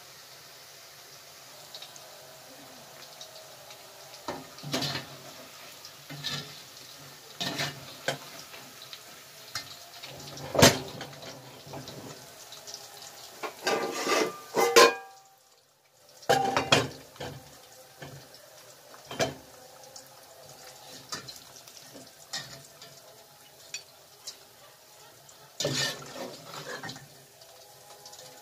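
Metal utensils, pots and plates clinking and knocking at a stove in scattered strikes, two sharper knocks standing out. Under them is a faint steady hiss of potato chips frying in oil.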